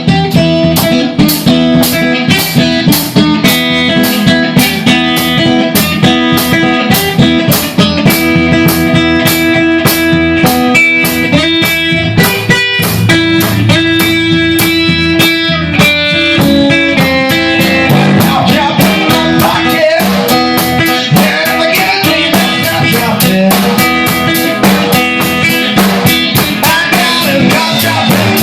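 A blues band playing an instrumental passage: guitar over a steady drum-kit beat. About two-thirds of the way through, the guitar line turns to bent, wavering notes.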